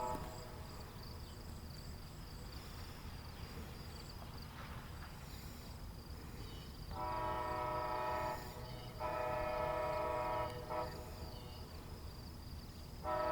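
Horn of an Amtrak Pere Marquette train's Siemens locomotive sounding a multi-note chord in two long blasts, with a third beginning near the end, over a low steady rumble. The horn is loud.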